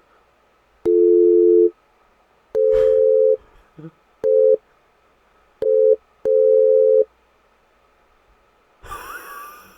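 AI-generated telephone-style beeps: a dial-tone-like two-pitch tone switching on and off in about six bursts of uneven length, some long and some short, like Morse code.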